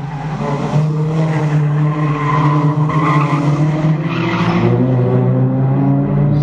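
Toyota Corolla Altis race cars running hard through a corner, engines held at steady revs, with tyre squeal swelling twice, about two and four seconds in.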